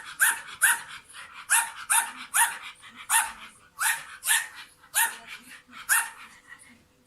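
A young dog barking at a vacuum cleaner head, which it is wary of. It gives a rapid string of sharp, high-pitched barks, about two a second, and falls quiet shortly before the end.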